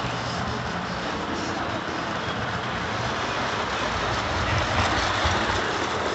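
Lionel O-scale freight train, freight cars and caboose rolling over FasTrack: a steady rolling rumble of wheels on track, a little louder about five seconds in.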